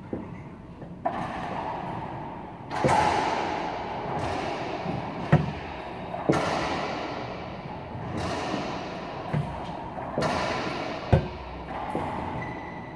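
Racquetball rally: the hollow rubber ball smacking off racquets and the court walls about ten times, each hit ringing with a long echo in the enclosed court.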